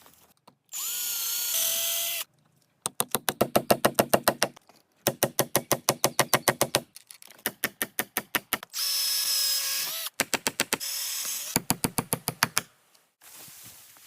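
A power drill running in two short whining bursts, each with a shift in pitch, alternating with runs of rapid, even clicking at about nine a second.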